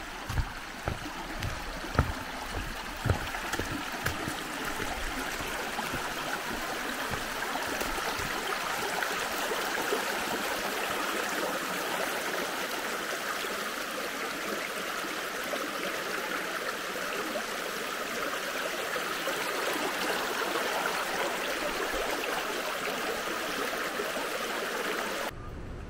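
Shallow, rocky forest stream babbling over stones and stepping stones, a steady rush of water. A few low thumps come in the first few seconds.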